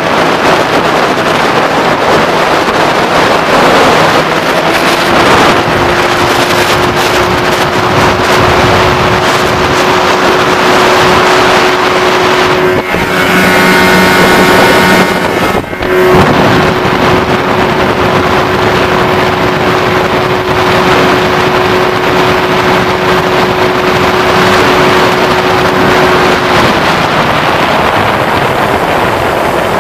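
A 1987 Mercury 20 hp two-stroke tiller outboard running at speed, about 28 mph, with a steady engine note under heavy wind noise on the microphone.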